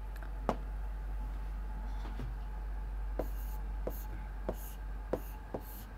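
Pen writing and drawing: light taps and short scratchy strokes as a diagram is drawn, coming more often in the second half. A low steady hum runs underneath.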